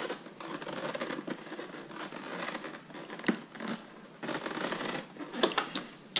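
Irregular rubbing and scraping with scattered light clicks, then a few sharper clicks in the last second.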